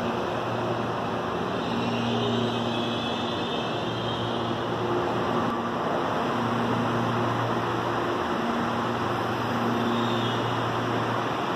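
Electric commuter train at a station platform: a steady rushing hiss with a low electrical hum that keeps fading in and out every second or two.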